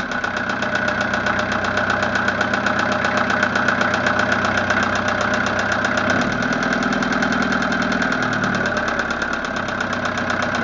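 Westerbeke Four 60 sailboat engine running at a steady idle with a fast, even tapping on every stroke, the tapping that is its owner's complaint.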